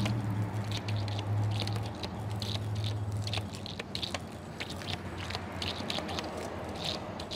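Garden-hose water spitting irregularly out of a pressure washer's spray wand, with the engine off, as air bubbles are purged from the pump and hose, and spattering as it lands. A low hum runs under it and stops about three and a half seconds in.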